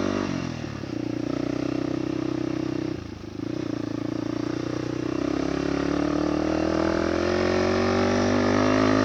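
Motorcycle engine pulling in a low gear on a steep climb. The pitch holds steady, drops briefly about three seconds in as the throttle eases, then rises slowly as it accelerates again.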